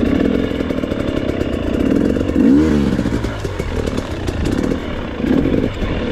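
Motorcycle engine running at low revs, with a quick blip of the throttle up and back down about two and a half seconds in and another short rev near the end.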